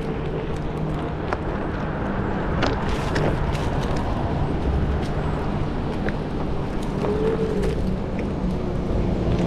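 Self-built Onewheel-style board rolling on its single hub-motor wheel: steady tyre-on-pavement noise with a low motor hum. There are sharp clicks every second or so, the loudest about three seconds in, as it crosses the sidewalk seams.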